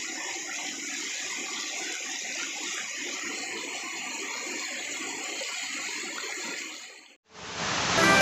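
Swift floodwater rushing steadily. About seven seconds in it cuts off briefly, then a louder rushing noise starts near the end.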